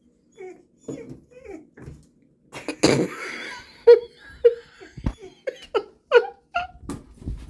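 A person laughing in a run of short, repeated bursts about half a second apart, with a louder breathy burst about three seconds in.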